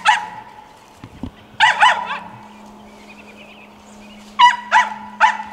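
Feist squirrel dog barking treed at the base of a tree: sharp barks in quick pairs and threes with pauses between, the sign that she has a squirrel up the tree.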